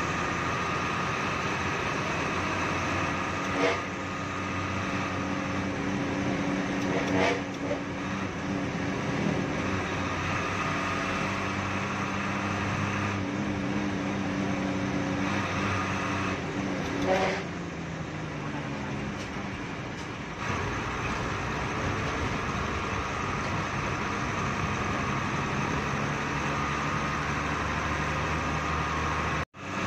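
Hino Ranger bus's diesel engine running under way, heard from inside the driver's cab, with road and rattle noise; the engine pitch falls from about seventeen to twenty seconds in. A few brief louder sounds stand out about 3, 7 and 17 seconds in.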